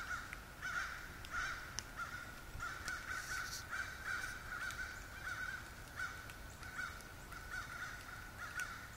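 A chorus of many crows cawing, their caws overlapping one after another without a break.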